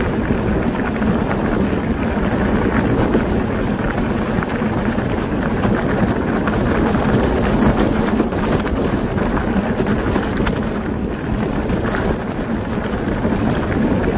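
E-bike tyres rolling over a loose gravel track with a steady rumble and many small crunches and pops of stones, mixed with wind buffeting the microphone.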